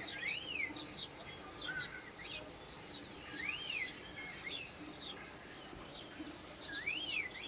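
Several wild birds singing: one repeats a clear whistled note that rises and falls, three times about three seconds apart, over a scatter of short high chirps from other birds.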